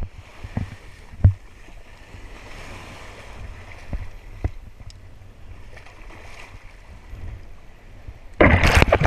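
Water sloshing and wind buffeting the microphone of an action camera held at the water's surface, with a few sharp handling knocks. Near the end comes a loud rush of splashing water.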